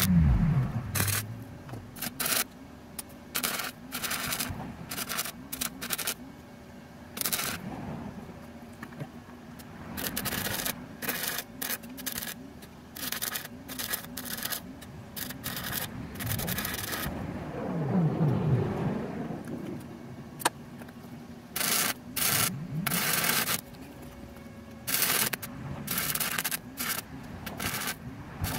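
Wire-feed welder arc crackling on steel in a string of short welds, each a fraction of a second to over a second long, with pauses between them. Around the middle a lower rumble swells and fades under the welding.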